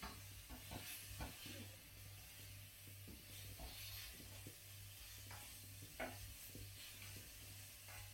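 Floured chicken pieces frying faintly in a metal wok, with a utensil scraping and tapping against the wok as they are turned; one louder knock about six seconds in.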